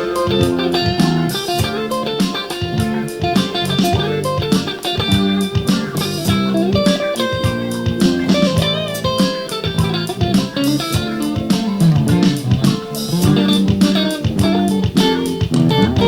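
Electric guitar played clean through a Marshall 1959HW 100-watt valve amplifier head, a continuous stream of quickly picked notes and chords.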